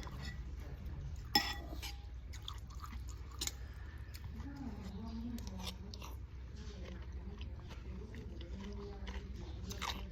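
Someone chewing noodles close to the microphone: a run of small wet mouth clicks and smacks, with one sharper click about a second and a half in.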